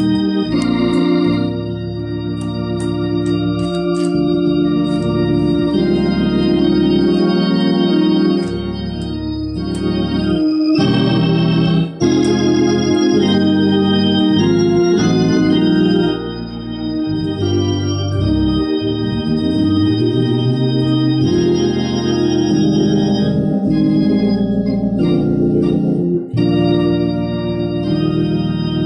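Two-manual console organ played with full sustained chords that change every second or so. It cuts out very briefly about halfway through.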